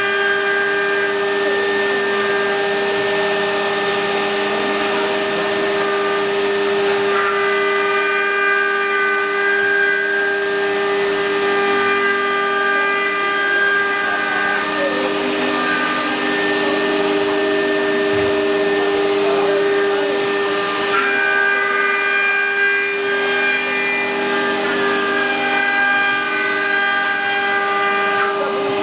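Multi-spindle 4-axis CNC wood router running, its row of spindles giving a loud, steady whine of several tones at once as they cut wood on the rotary axes. The tones shift in pitch a few times.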